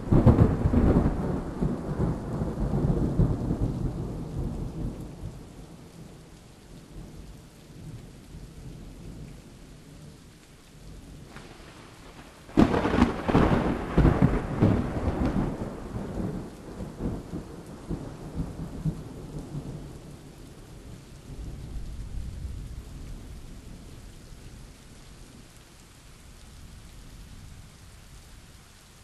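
Thunderstorm: a sharp thunder clap right at the start rolls off into a long rumble, a second clap about halfway through does the same, and a weaker rumble follows later, all over a steady hiss of rain.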